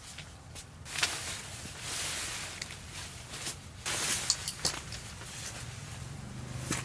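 Footsteps and rustling as someone moves about, with several sharp clicks about four seconds in.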